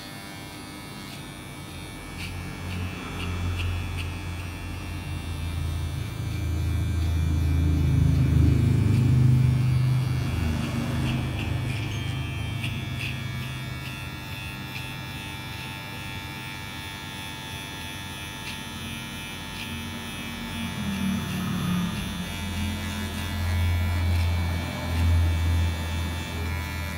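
Cordless electric hair clipper running steadily while it cuts the short hair on the side of the head for a fade. Its buzz swells and eases as the blade is worked through the hair, loudest about a third of the way in and again near the end.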